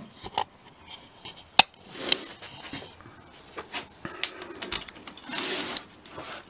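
Hands handling tools and parts around an engine: scattered small clicks and metal clinks, one sharp click about a second and a half in, and a brief rustle near the end.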